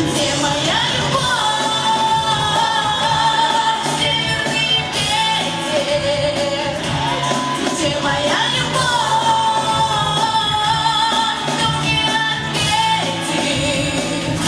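Woman singing long held, slightly wavering notes over a pop-rock backing track with a steady beat.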